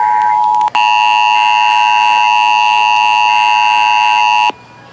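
Emergency Alert System attention signal: a loud, steady two-tone alarm announcing a required monthly test. It drops out for an instant less than a second in, comes back with added higher tones, and cuts off suddenly near the end.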